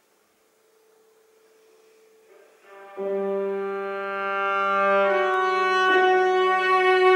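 Viola playing long bowed notes. It starts as a barely audible held high note, then swells into a loud low sustained note about three seconds in, moving to higher held notes about five seconds in, with a sharp accent near six seconds.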